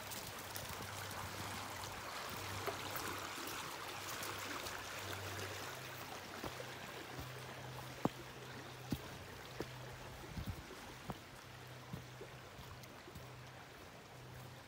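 Creek water running, strongest in the first half and fading after about six seconds. Several sharp clicks of footsteps on the leaf- and root-covered forest floor come in the second half, over a low steady hum.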